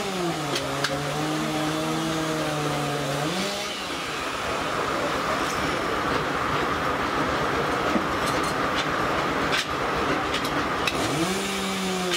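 Steam-powered sawmill running with its large circular saw blade. A low hum drops in pitch and holds for about three seconds, then swings back up and fades into a steady noisy run with a couple of sharp knocks. Near the end the hum swoops up and down again.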